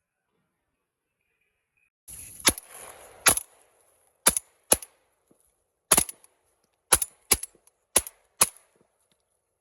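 A rapid volley of about nine shotgun shots at ducks, coming singly and in quick pairs over some six seconds, starting about two seconds in. A brief rushing noise sounds under the first two shots.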